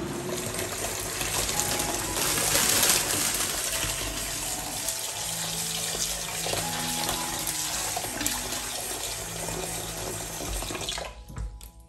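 Kitchen tap running a steady stream of water onto bean sprouts in a plastic colander, with a hand swishing the sprouts under it. The water stops near the end.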